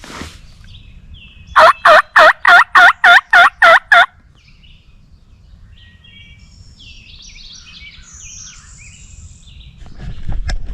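A turkey call run as a series of eight loud hen yelps, about three a second, each note dipping and rising in pitch. Faint high chirps follow, and a few sharp knocks sound near the end.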